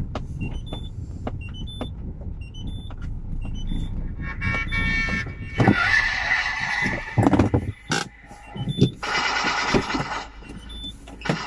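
Car engine rumbling inside a small car while a high electronic beeper sounds regularly, about one and a half beeps a second, for the first few seconds. It is followed by loud bursts of a harsh, many-toned alarm-like sound and several sharp knocks.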